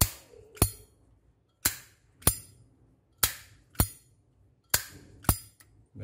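Solid brass Zippo lighter's hinged lid flipped open and snapped shut four times, each time a pair of sharp metallic clicks about half a second apart: the characteristic Zippo click.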